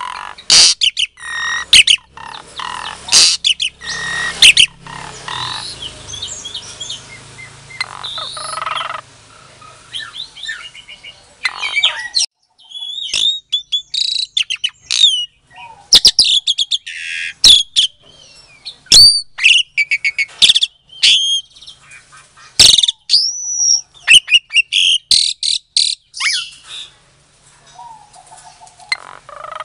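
Javan pied starling (jalak suren) singing a loud, varied song of harsh squawks, rapid clicks and whistled notes that glide up and down, with a brief thinner stretch about ten seconds in. It is used as a lure song to provoke other starlings into answering.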